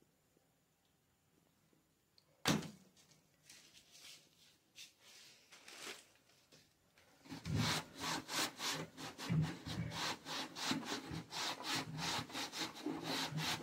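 A single sharp slap of a flip-flop sandal against a window shutter about two and a half seconds in, swatting a spider. From about seven seconds in, a cloth is rubbed back and forth over the shutter slats in quick, even strokes.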